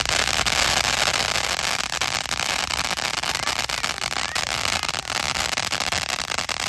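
Ground fountain firework burning: a steady hiss of spraying sparks with a scatter of small crackles throughout.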